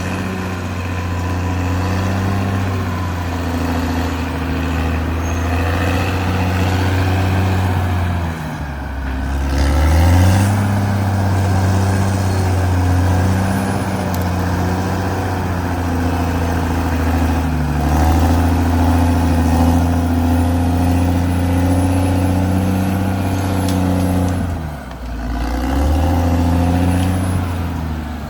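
Caterpillar D6R XL bulldozer's diesel engine running steadily under load while working soil. Its pitch drops and picks back up twice, about eight seconds in and again near the end.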